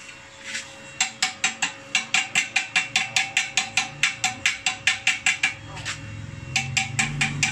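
Chipping hammer rapping slag off a fresh stick weld on a steel bar held in a vise: quick ringing metallic taps, about five a second, that stop for about a second and then start again near the end.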